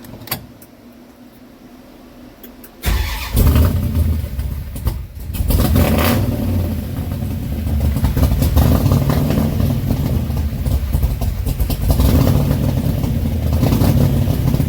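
1972 Dodge Charger's big-block V8 started warm through its new exhaust: it catches suddenly about three seconds in, dips for a moment, then runs loud and steady.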